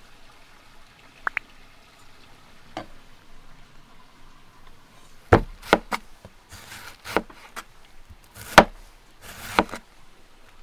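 Scattered sharp knocks on wood with short scraping sounds between them: a pair early on, then a busier run in the second half, the loudest knock about eight and a half seconds in.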